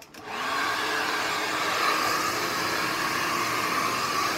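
Hand-held hair dryer switched on just after the start. Its motor spins up within half a second, then runs steadily: a rush of air with a steady whine, blowing on wet hair.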